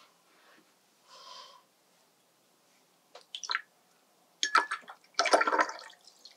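Watercolour paintbrush being rinsed in a jar of water: water swishing, with quick taps and clinks of the brush against the jar, loudest in the last two seconds.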